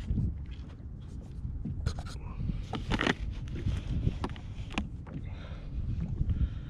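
Scattered knocks and scrapes of gear against a kayak, the loudest about halfway through, over a steady rumble of wind on the microphone.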